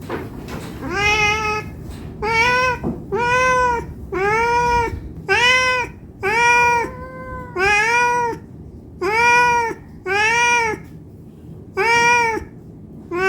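Domestic cat meowing over and over, about ten loud meows roughly a second apart, each one rising then falling in pitch: a hungry cat begging for food.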